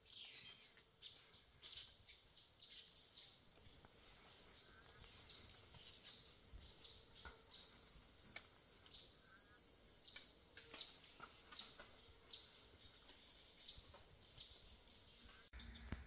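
Birds calling in the forest canopy: faint, short, high chirps repeated every half second to a second.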